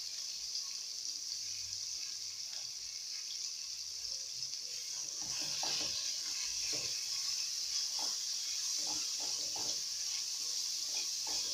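Sliced red onions frying in a little oil in an aluminium pot, a steady sizzling hiss. From about halfway through, a wooden spoon stirs them, scraping and knocking against the pot.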